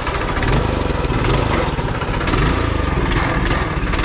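Trailmaster MB200 minibike's 196cc engine running and revving up and down several times, its governor just modified by removing a screw for a higher governor setting.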